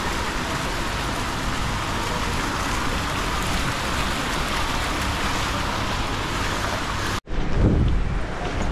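Steady, even hiss of indoor market-hall ambience. About seven seconds in it cuts off abruptly and gives way to a louder stretch with a low rumble.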